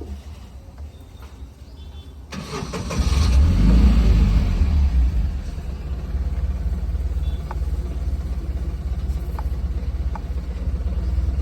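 Tata Ace Gold CNG mini-truck engine starting about two seconds in, running up briefly as it catches, then settling into a steady idle.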